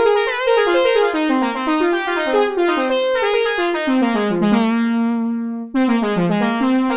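Sequential Trigon 6 six-voice analog polysynth playing its 'Stabby Brassy' preset: a quick run of short, bright brass-like notes stepping down in pitch. It breaks off briefly near six seconds in, then a second falling run begins.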